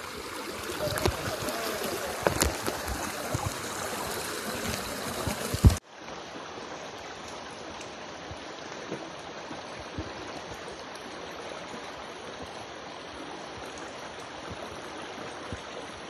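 Shallow rocky mountain stream running, a steady rush of water. Over the first six seconds it is louder, with scattered knocks and a sharp thump, then it cuts off abruptly to a quieter, even rush.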